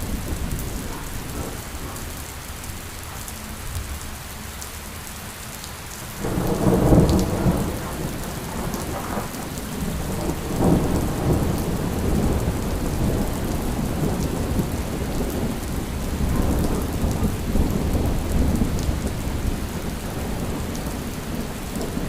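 Steady rain with thunder. About six seconds in a thunderclap breaks out loudly and rolls on in waves, swelling again a few seconds later before easing back under the rain.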